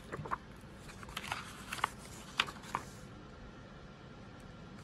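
Hardcover picture book being opened and its pages turned by hand: a handful of short rustles and flaps, bunched in the first three seconds.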